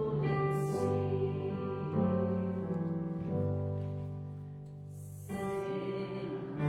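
A congregation singing a hymn with keyboard accompaniment, held chords changing every second or so. The music softens about four seconds in, then a new phrase comes in louder near the end.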